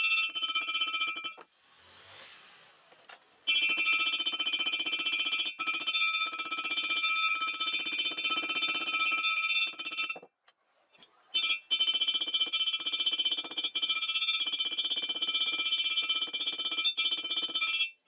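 Hammer striking a steel rebar rod in fast, steady blows on a small steel I-beam anvil, the anvil ringing with a bright, steady metallic tone. The blows are shaping a loop in the rod's end. The hammering stops twice for a second or two, about a second and a half in and again about ten seconds in.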